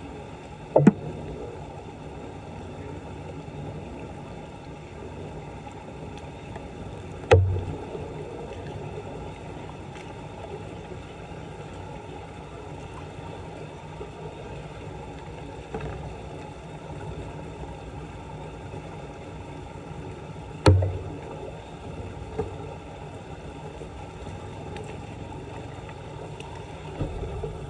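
Steady sound of floodwater around a street drain, broken by three sharp knocks with a dull thud, plus a few lighter ones.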